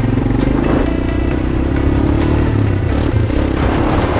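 ATV (quad bike) engine running steadily as it is ridden along a gravel road, with a rushing hiss building near the end.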